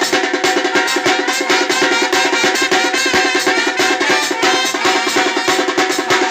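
Percussion group playing drums in a fast, dense, steady rhythm.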